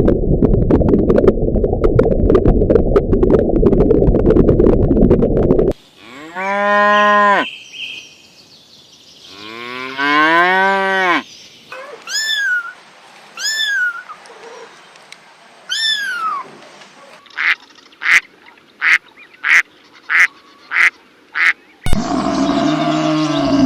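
A series of different farm animal calls in turn: a rough, noisy stretch, then two long calls that rise and fall in pitch, three short high falling calls, a quick run of short sharp calls, and another call near the end.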